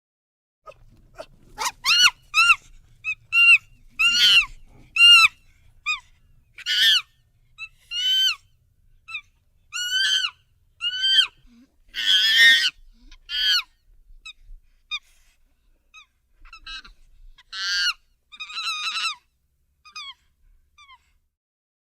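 Chimpanzee-like ape-man vocal effects: a long, irregular string of short, high-pitched calls, many rising then falling in pitch. A louder, harsher screech comes about twelve seconds in.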